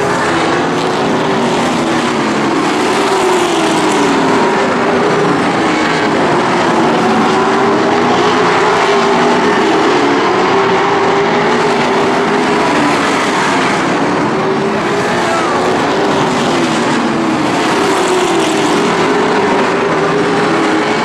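A pack of late model stock cars racing on a paved short oval, their V8 engines running hard together with pitches rising and falling as the cars pass and come off the turns.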